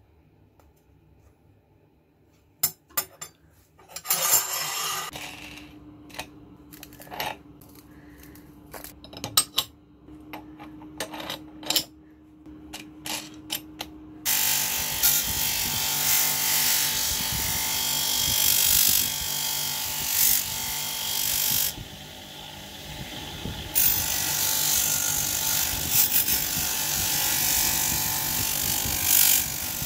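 Scattered clicks and knocks of metal parts being handled as a wheel is fitted onto a bench grinder. About halfway through, the bench grinder runs with a scissor blade held against its spinning wheel: a steady, dense grinding hiss of metal being polished, which dips briefly and then resumes.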